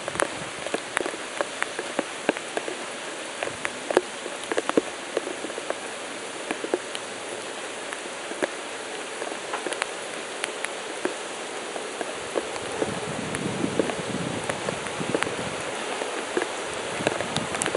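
Rain falling: a steady hiss with many scattered, sharp drop ticks, growing fuller and a little louder in the second half.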